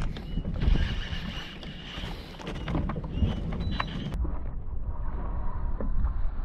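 Wind buffeting the microphone out on open water, with scattered light clicks and knocks. About four seconds in the sound suddenly turns duller.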